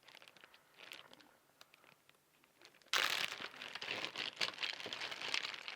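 Packaging crinkling and rustling as it is handled, starting suddenly about three seconds in after a few faint small handling sounds, likely as a metallic paint marker is taken out.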